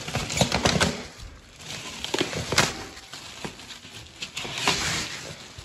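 Packaging being pulled off a newly delivered wheel: cardboard and wrapping rustling, with irregular knocks and thumps as the box and wheel are handled; the sharpest knock is about two and a half seconds in.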